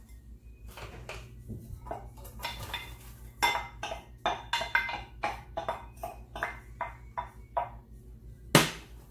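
Sliced red onions tipped from a bowl into a stainless steel pot and scraped out, a quick run of clicks and taps against the pot and bowl, with one sharp knock near the end.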